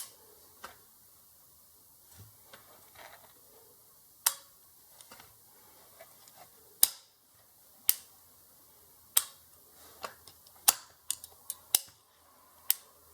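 Sharp, irregular clicks and taps of small lock parts, springs and tools being picked up and set down, about a dozen, coming closer together toward the end.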